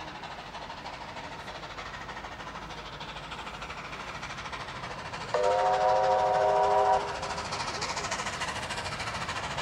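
Steam locomotive 3801's chime whistle sounds once, several notes together held for close to two seconds, about five seconds in, over a steady rushing background as the train approaches.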